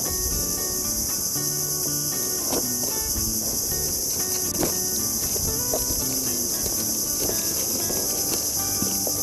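A steady, high-pitched chorus of insects, with scattered light clicks and rustles from a parcel being opened.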